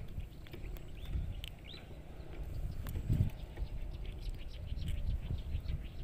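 Scattered short bird chirps over an uneven low rumble on the microphone.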